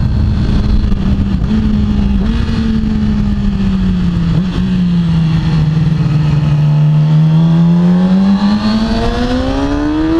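Yamaha YZF-R6's inline-four engine through an Akrapovic exhaust, heard onboard with wind rush. The engine note steps up in pitch about one and two seconds in as the bike shifts down, sinks slowly as it rolls through a bend, then rises steadily under acceleration near the end.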